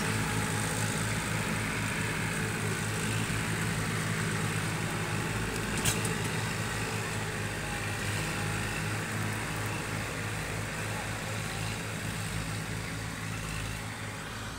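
Massey Ferguson 1035 DI tractor's three-cylinder diesel engine running steadily while pulling a loaded trailer, fading a little near the end as it moves away. A single sharp click sounds about six seconds in.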